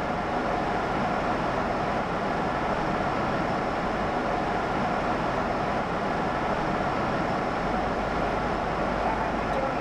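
Electric motor and propeller of a Volantex Ranger G2 FPV plane running steadily at cruise power, a constant drone over rushing wind, heard through the onboard camera's microphone.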